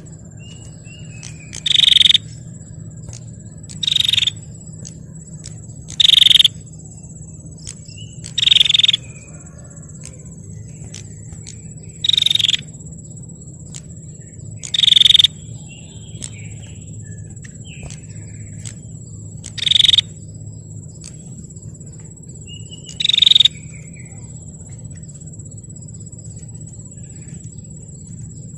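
Female prenjak (prinia) giving short, buzzy rattling calls, eight in all, spaced a few seconds apart. Under them runs a steady high whine and a low hum.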